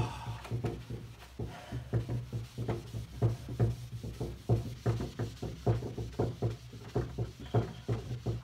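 Hand buffing of a freshly waxed pine table top with a pad: rhythmic rubbing strokes, about two to three a second, each with a soft knock, stopping near the end.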